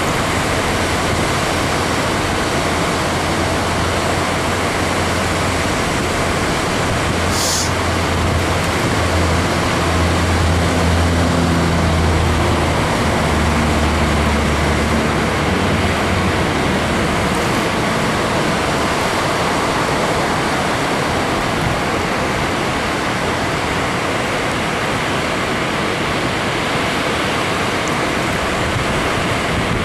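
Water pouring over a lowhead dam and churning in the pool below: a loud, even rush. A low hum swells and fades about a third of the way in.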